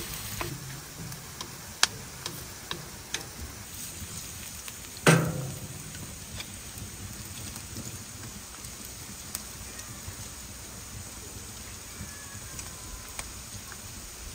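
Food sizzling steadily in a pan, with scattered light clicks of a utensil and one loud knock about five seconds in.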